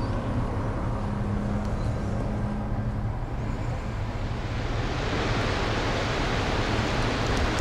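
Snow-storm sound effect: a steady rush of wind with a low rumble and a faint steady low tone, growing hissier from about halfway through.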